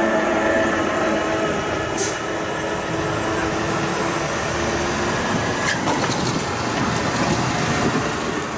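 Passenger train rolling past on the rails: a steady rumble and rushing with a few held tones and a couple of sharp clicks from the wheels and rail joints.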